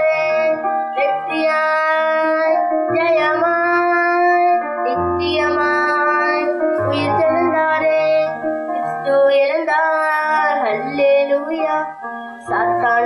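A boy singing a song into a microphone, amplified, over instrumental accompaniment, in phrases of a few seconds each with a short breath pause near the end.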